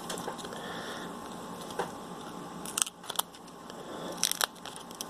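A 3D-printed HDPE part being pried and peeled by hand off a polypropylene food container, giving a run of sharp plastic clicks and crackles as the print releases from the plastic. The clicks come from about two seconds in, and the loudest are near the end.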